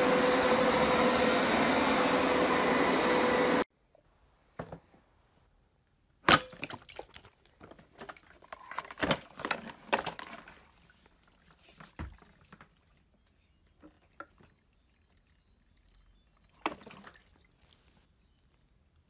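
Hoover Power Scrub Deluxe carpet washer running steadily, then cutting off suddenly a few seconds in. Afterwards come scattered clicks and knocks as the machine is handled, the loudest a sharp click about six seconds in.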